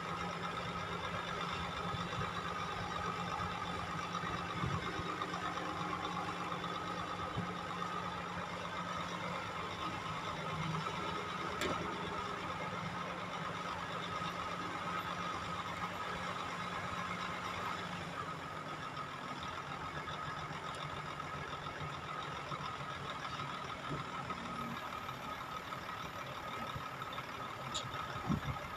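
Dump truck's diesel engine running steadily while the hydraulic hoist raises the loaded bed to tip sand, with a steady high tone over the engine. The engine note drops a little about two-thirds of the way through, and there are a couple of sharp clicks.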